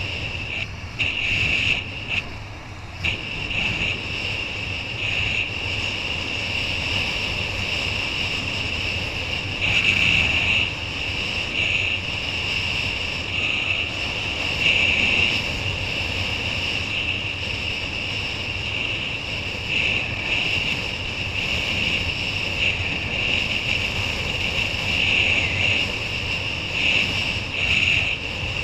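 Wind buffeting the microphone of a kiteboarder's head-mounted camera at riding speed, with water rushing under the board; the noise swells and eases in gusts every few seconds.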